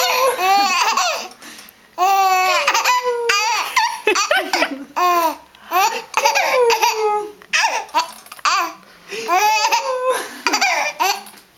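Baby laughing in repeated high-pitched bouts of giggles, each burst a second or two long with short breaks between.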